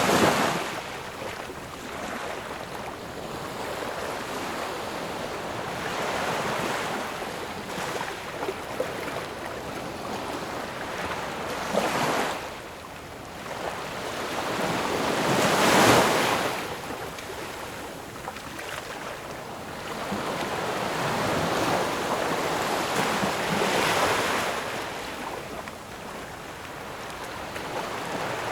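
Ocean waves breaking and washing on the shore in a steady hiss, with swells every few seconds; the biggest comes about halfway through.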